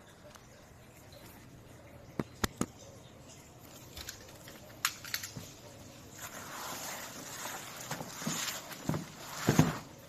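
Laptop packaging being handled during unboxing: a few sharp clicks, then rustling and scraping that grows louder, with low thumps near the end.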